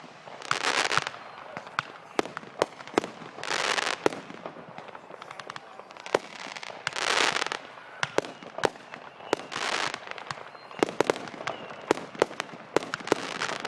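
Fireworks going off: a steady run of sharp pops and bangs, growing denser near the end, with four hissing swells lasting about a second each.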